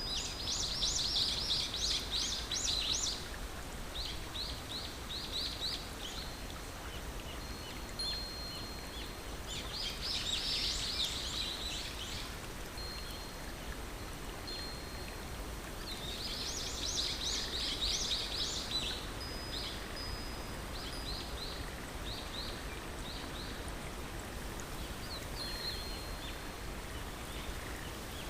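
Songbirds singing: three bouts of rapid, high trilled chirps with scattered shorter chirps and a few thin whistles between them, over a steady background rush.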